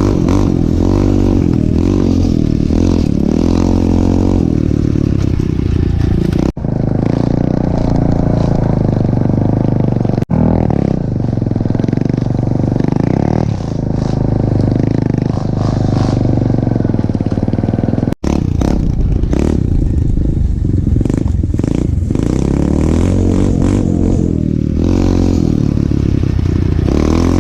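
Four-stroke single-cylinder 125 cc pit bike engine running while riding, its revs rising and falling as the throttle is worked.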